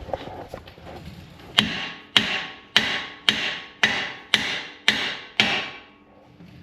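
Hammer striking the end of a Jeep Wrangler's steering tie rod eight times, about two blows a second, each blow ringing briefly, to knock the tapered tie rod end loose from its mount.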